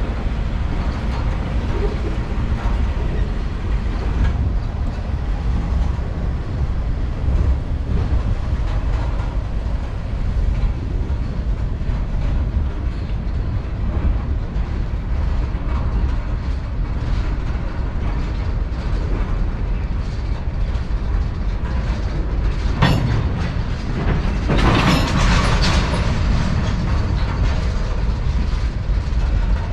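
Cars of a long Norfolk Southern manifest freight train rolling past: a steady low rumble of wheels on rail. Near the end comes a sharp bang, followed by a couple of seconds of louder, higher-pitched clatter.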